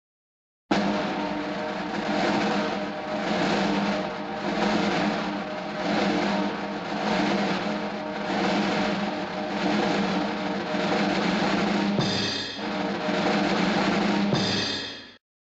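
Music led by a drum kit, with a steady beat under held notes. It starts abruptly just under a second in and stops abruptly near the end.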